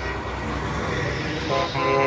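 A semi truck rolls past with its diesel engine running, then a multi-tone air horn starts blasting about one and a half seconds in, a chord held steady.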